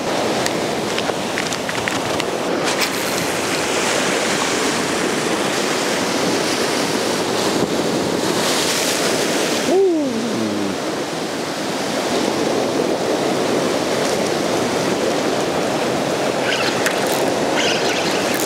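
Ocean surf breaking and washing over a rocky shore, a steady roar of surf. About halfway through, a short cry falls steeply in pitch.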